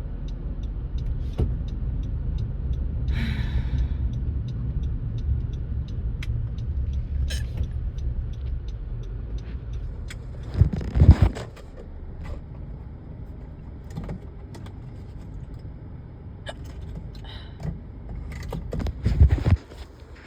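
Car cabin noise while driving: a steady low road-and-engine rumble that drops off about halfway through, with a faint regular ticking about twice a second. A few short sharp sounds come through, and two loud low thumps, one about halfway and one near the end, stand out above the rest.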